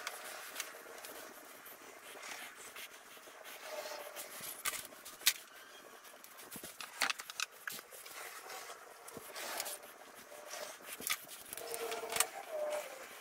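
Sped-up workshop handling sounds: scattered sharp clicks and knocks of clamps being set and wood being shifted, over rustling, with a few brief squeaks.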